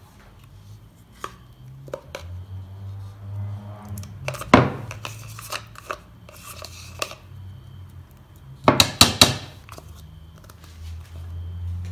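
Metal spoon scraping mascarpone out of its plastic tub into a plastic mixing bowl, knocking against the tub and bowl: a few light clicks, one louder knock about four and a half seconds in, and a quick run of about four knocks about nine seconds in.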